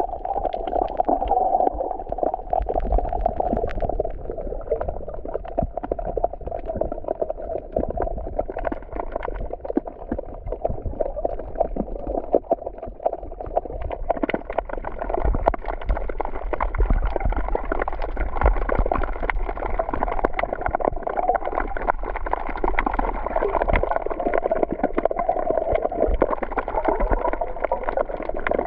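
Black Sea water washing and gurgling at the beach shoreline, a steady crackling wash over a low rumble.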